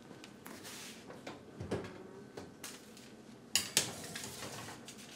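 Quiet clatters and knocks of a metal cookie sheet being put into an oven, with the oven door being handled; two sharper knocks come a little past halfway.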